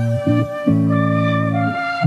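Instrumental background music, with held low notes changing every second or so under a higher melody line.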